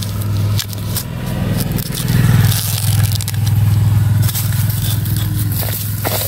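An engine running steadily in a low drone that swells a little in the middle, with crackling and scraping of dry bamboo leaf litter close by.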